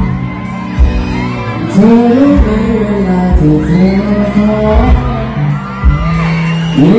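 A male singer singing a pop song live into a microphone over amplified backing music, with a low drum beat about once a second.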